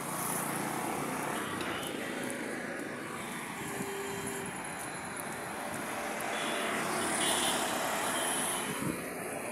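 Steady road traffic noise, an even wash of vehicle sound.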